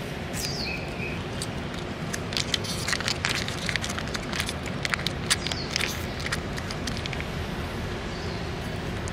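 Plastic wrapper of a cat treat crinkling and crackling as it is opened and handled, a quick run of sharp crackles through the middle. A steady low traffic hum runs underneath.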